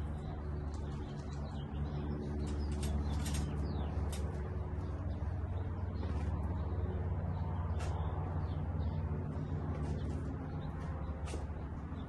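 Birds chirping now and then, short high calls scattered through, over a steady low hum.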